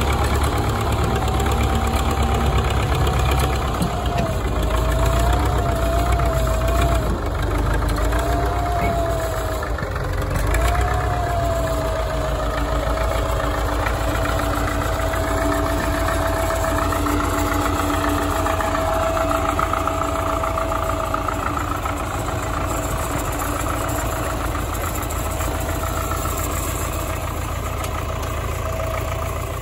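MTZ-50 tractor's four-cylinder diesel engine running, a steady low rumble. A higher tone above it wavers in pitch at first, then holds steady from about a third of the way in.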